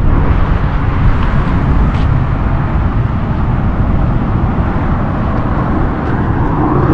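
Road traffic going by on the highway beside the roadside verge: a steady, loud rush of car tyres and engines, with one vehicle swelling up near the end.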